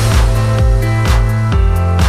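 Background electronic music with a steady beat and sustained bass notes.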